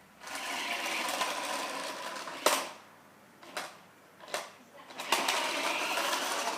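Toy remote control car's small electric motor and gears whirring in two runs: the first ends in a sharp click about two and a half seconds in, then a quieter gap with a couple of short clicks, then the whir starts again about five seconds in.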